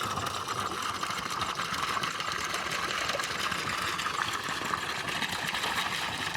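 Steady gush of water pouring from a solar water pump's discharge outlet while the freshly fitted pump runs, delivering about 4 litres in 6 seconds, a flow the repairer judges good.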